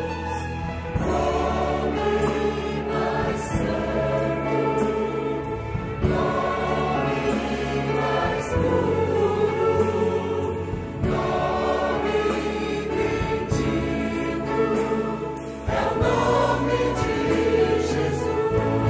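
Mixed choir singing with a full orchestra of strings, flutes, saxophones and brass, in a Brazilian gospel cantata.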